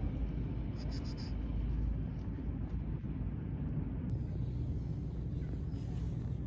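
Steady low outdoor rumble with no distinct events, the kind made by distant traffic or wind on the microphone.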